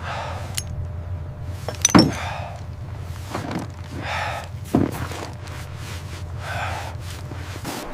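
Heavy, breathy gasps about once a second over a steady low rumble, with two sharp thuds, about two seconds in and again near five seconds.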